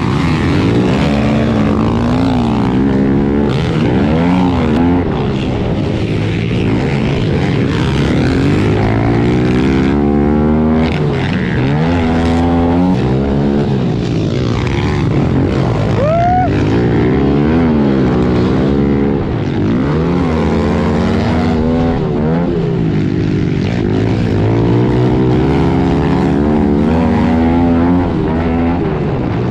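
Small four-stroke pit bike engine heard from on board, revving up and dropping back over and over as the rider accelerates out of and brakes into the turns, with other pit bikes running close by.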